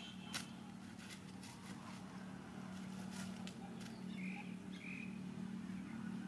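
Outdoor ambience with a steady low hum, a sharp click about half a second in, and two short, faint high chirps between four and five seconds.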